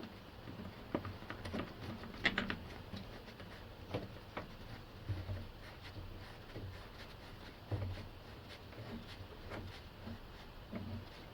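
Scattered light clicks and knocks of metal parts being handled while a car's shock absorber top mount and bolt are fitted, with a small cluster of sharper clicks about two seconds in.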